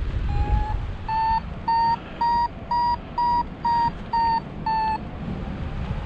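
Paragliding variometer beeping about twice a second, its pitch rising slightly then easing back: the tone that signals the glider is climbing in rising air. Wind rushes low on the microphone underneath.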